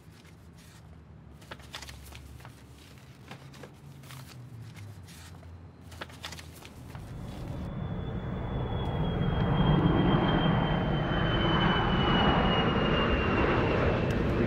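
A few faint clicks, then engine noise swelling up from about halfway through and staying loud, with a thin high whine falling slowly in pitch.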